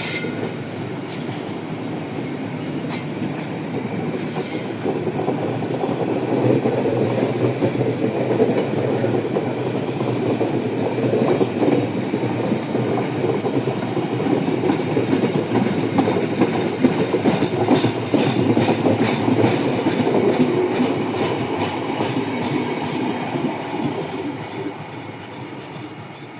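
Passenger train carriages rolling past with a steady rumble and the clickety-clack of wheels over rail joints. A thin, high wheel squeal rises over it for a few seconds about a third of the way in, and the sound fades near the end as the train moves away.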